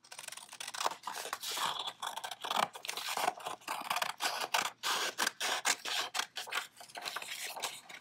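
Scissors cutting through a sheet of colored paper along a fold, a quick continuous series of crisp snips.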